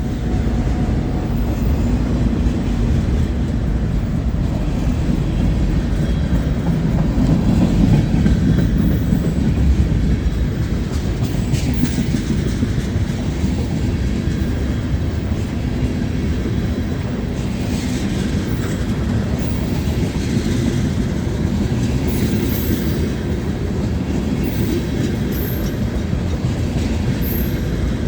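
Freight train rolling past: a steady rumble of wheels on rail with clickety-clack over the joints, and a few brief high squeaks near the end.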